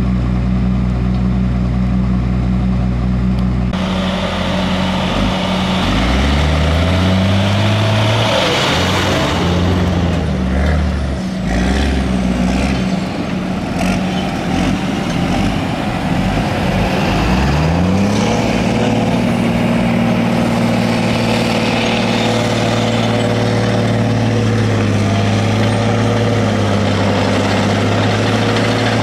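A road vehicle's engine idles, then pulls away and accelerates through several gears, its pitch rising in steps. It then settles into a steady run, with road and wind noise.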